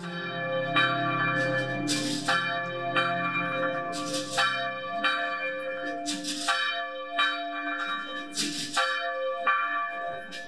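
Church bells ringing: a heavy clang about every two seconds with lighter strikes between, the bell tones ringing on and overlapping. A low music drone fades out under them during the first few seconds.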